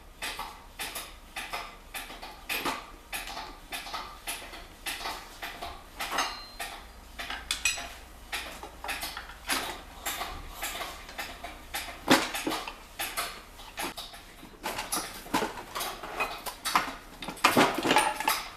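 Hand tools and bolts clinking and clattering on a manual gearbox case as it is unbolted and split open: an irregular run of small metallic knocks, busiest near the end.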